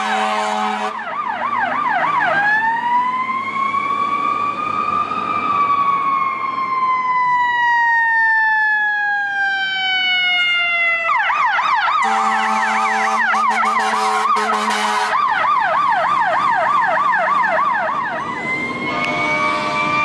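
Fire rescue truck's electronic siren: a rapid yelp, then a slow wail that rises for a few seconds and falls away over about six, then back to the yelp. An air horn blasts over the siren at the start and again for about three seconds partway through. Near the end another siren begins slowly winding up.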